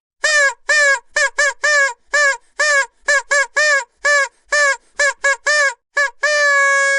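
Vuvuzela blown in a rapid run of short toots, each bending up and back down in pitch, then one long held blast starting about six seconds in.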